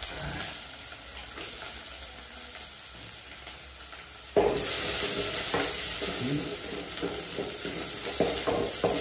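Onions sizzling as they fry in hot cooking oil in a pan, stirred with a utensil knocking and scraping against the pan. The sizzle turns suddenly louder about halfway through.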